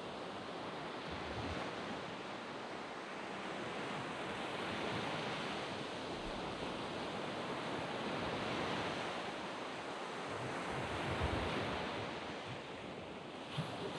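Sea waves washing onto a sandy beach, the surf noise swelling and easing every few seconds, with some wind buffeting the microphone as low rumbles.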